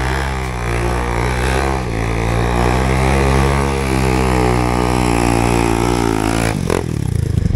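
Off-road motorcycle engine running at low, fairly steady revs, its pitch wavering slightly, heard close up from the rider's seat. A short sharp noise comes about a second before the end.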